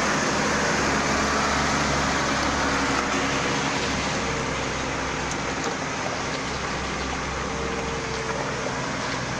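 Heavy diesel engines running steadily under load as a backhoe loader tows a school bus through mud, with a steady rushing noise over them. It is a little louder in the first few seconds, then evens out.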